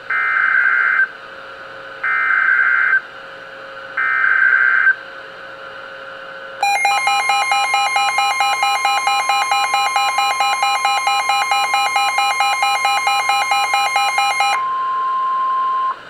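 NOAA weather radio receiving a tornado warning: three one-second bursts of the SAME digital header, screechy data tones about two seconds apart. About six and a half seconds in, a loud, rapidly pulsing electronic alarm sounds for about eight seconds over the steady 1050 Hz warning tone. The warning tone then carries on alone near the end.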